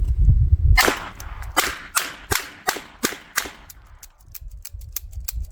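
A quick string of about six shots from two old .38 Smith & Wesson revolvers fired akimbo, each shot with a short ring after it, followed by a few light clicks. One revolver did not fire all of its rounds: some cartridges misfired.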